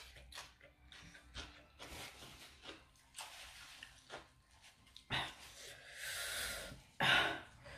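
A person eating spicy cucumber salad with octopus close to the microphone: many short chewing and slurping clicks, a longer hissing breath about six seconds in, and a louder burst of noise near the end.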